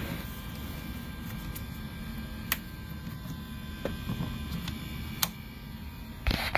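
Steady low hum between test tracks, with two sharp clicks a few seconds apart and a short scraping burst near the end.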